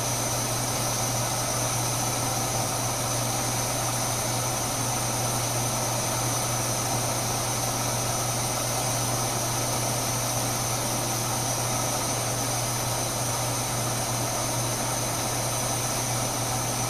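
MSR Whisperlite International liquid-fuel stove burning white gas at medium heat, its burner running with a steady, even rushing hiss under a pot of water.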